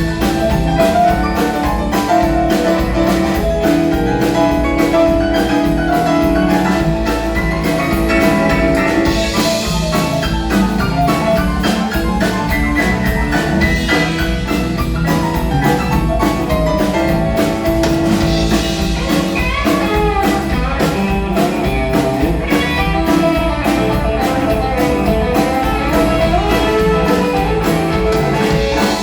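Country-rock band playing live, an instrumental stretch with a drum kit keeping a steady beat under guitar and other instrument lines.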